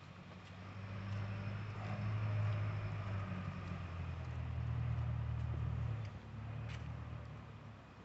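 A motor vehicle passing by: a low engine hum with tyre noise swells over the first couple of seconds, holds, then drops off about six seconds in and fades away.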